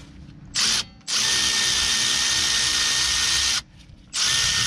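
Milwaukee cordless extended-reach ratchet spinning a brake caliper bolt out: a short blip about half a second in, a steady run of about two and a half seconds that stops suddenly, then it starts again near the end.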